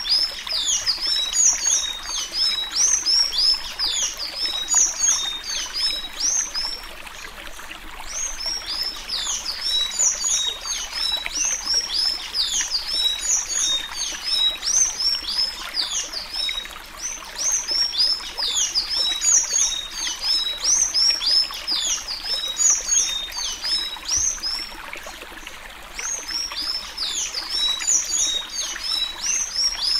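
Sanhaço-azul (a Thraupis tanager) singing the Alagoas 'suí suí' song type: a long, continuous run of quick, high, downward-slurred whistled notes, easing briefly twice before picking up again.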